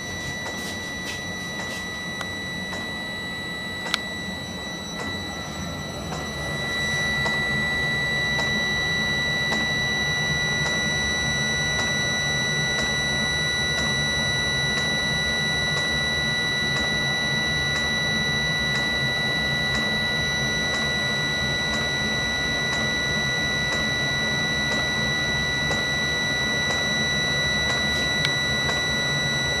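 Webasto Thermo Top C parking heater running: a steady high-pitched whine from its combustion-air blower over a low hum, with light ticking about once a second from the fuel dosing pump. There is a sharp click about four seconds in, and the heater gets louder around six seconds in as it ramps up.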